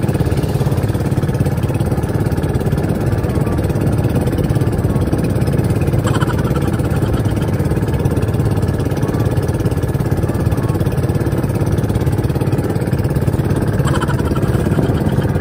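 Outrigger boat's engine running steadily under way, with wind on the microphone.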